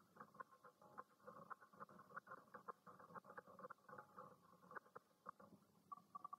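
Pencil scratching across drawing paper in quick, irregular short strokes, faint.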